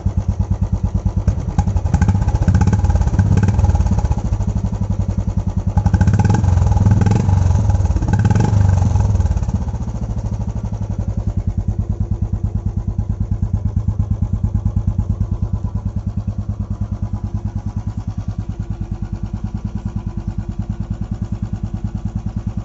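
Royal Enfield Bullet 350 BS6's single-cylinder engine running through an aftermarket Indori silencer. It is revved twice in roughly the first ten seconds, then settles into a steady idle with an even beat.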